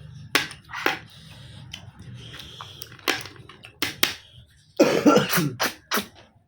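Short sharp sucking slurps and clicks of snails being eaten, several times. About five seconds in comes a loud cough, the loudest sound here.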